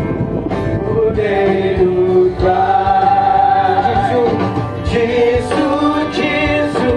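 Music with singing: slow, long-held sung notes over accompaniment.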